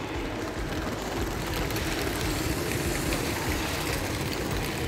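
Motorised LEGO train running past close by, a steady whirring rumble of its motor and wheels on the plastic track.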